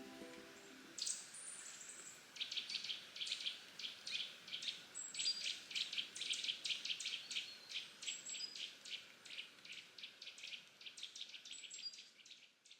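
Background music fading out in the first second, then a bird giving rapid, repeated sharp chirps, several a second.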